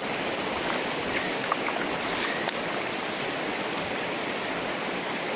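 Shallow river running steadily over stones and boulders.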